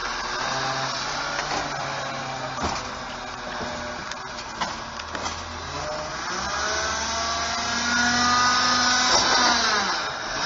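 CNG-powered Autocar ACX refuse truck with a Bridgeport Ranger automated side-loader arm. The arm's hydraulics run with a steady whine and a couple of sharp knocks as the cart is dumped and lowered. Then the engine revs up as the truck pulls away, rising in pitch and loudness before dropping off near the end.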